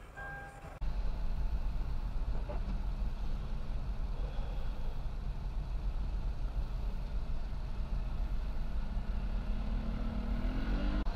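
Steady low road and engine rumble inside a moving car's cabin, after a few musical tones that cut off about a second in. Near the end an engine note rises in pitch as a vehicle speeds up.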